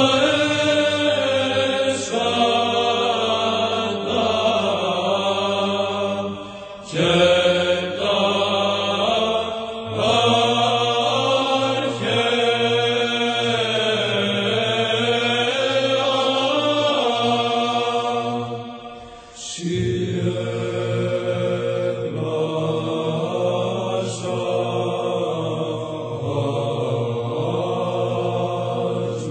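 Chanted singing in long held, wavering phrases over a steady low drone, with short pauses for breath about seven seconds in and near twenty seconds.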